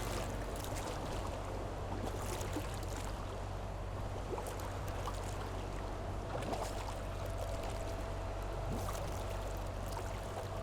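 A boat under way: water rushing and splashing along the hull over a steady low drone, with a faint steady tone joining about six seconds in.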